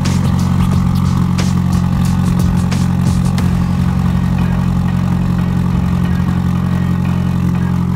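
Straight-piped Nissan SR20DET turbocharged four-cylinder idling steadily and loud out of twin exhaust tips, freshly started from cold. A few sharp cracks sound in the first few seconds.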